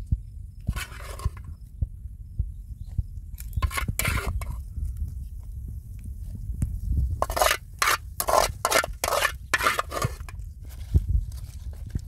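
Dry, thin flatbread crackling and rustling as it is torn and handled, in several short bursts: once about a second in, twice more around four seconds, and in a denser run in the second half. Under it runs a steady low rumble with a few soft thumps.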